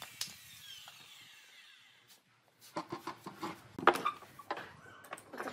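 A handheld circular saw spinning down after a cut, its whine falling away over about a second. After a short silence come irregular scrapes and knocks of a hand chisel working the top of a dry tree stump.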